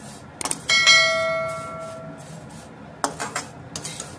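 A metal spatula scraping and turning dry-roasted vermicelli in a metal kadai. Less than a second in, the spatula knocks the pan, which rings like a bell and fades over a second or so. More short scrapes come near the end.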